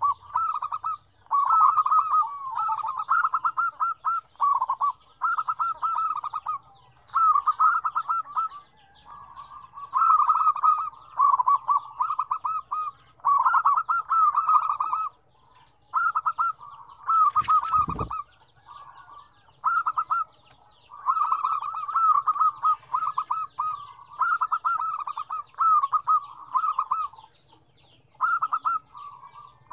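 Several zebra doves (perkutut) cooing together, their rapid staccato rolling coos overlapping in runs of about a second with short gaps. A single sharp knock sounds a little past halfway.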